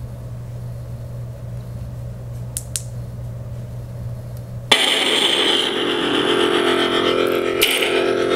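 Vader's Vault Mitsurugi 3K neopixel lightsaber, running a Plecter Pixel sound board, humming steadily at idle, with two quick clicks a little before the middle. About halfway through, the sound switches abruptly to a louder, fuller buzzing hum with many overtones.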